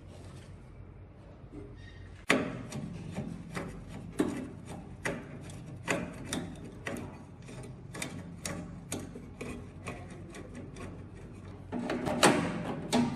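Hand-tool work on an old microwave: irregular rubbing and scraping strokes with sharp knocks, starting suddenly about two seconds in and getting busier and louder near the end.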